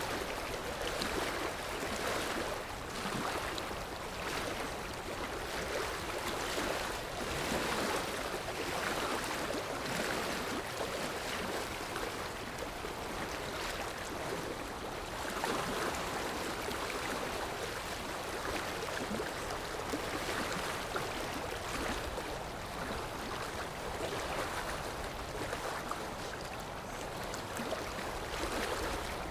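Sea waves washing in a steady hiss, swelling and easing every few seconds.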